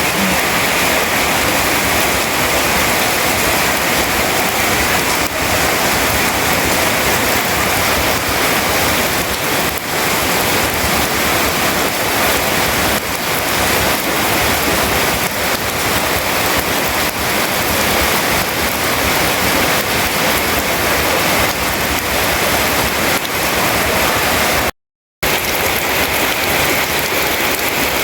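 Rain falling steadily, a dense even hiss of drops. It cuts out completely for a moment near the end.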